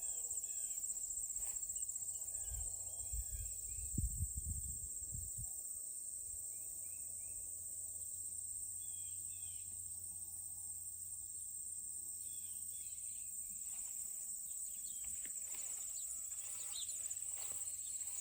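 Late-summer chorus of crickets and katydids: a steady, high-pitched pulsing trill, with a few faint bird chirps over it. A few low thumps come between about two and five seconds in.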